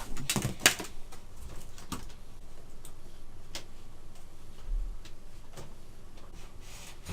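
Scattered light clicks and knocks from a wired keyboard and its cable being handled: a quick cluster in the first second, then single clicks about once a second.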